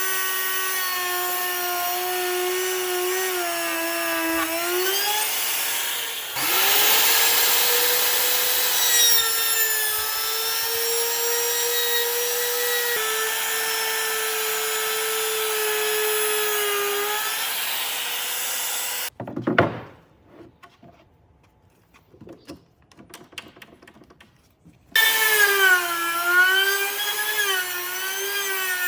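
An electric woodworking power tool running and cutting wood, its motor pitch sagging and wavering under load, with a harsh cutting noise added about six seconds in. The sound cuts off abruptly about two-thirds of the way through, leaving a few faint knocks for several seconds, then the motor comes back.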